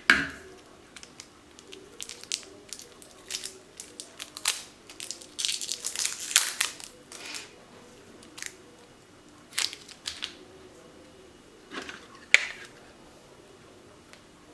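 Plastic packaging crinkling and tearing as a 9-volt battery is unpacked and handled, among scattered clicks and taps, with the busiest crinkling about five to seven seconds in and a sharp click near the end.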